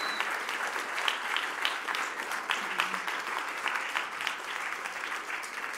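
Audience applauding: many hands clapping in a steady patter, easing off a little near the end.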